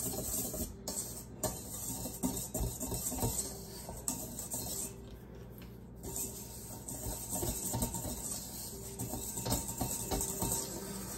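A whisk stirring dry biscuit ingredients (flour, baking powder, sugar and salt) in a mixing bowl, with quick irregular scraping and tapping strokes. The strokes ease off for a moment about halfway through, then pick up again.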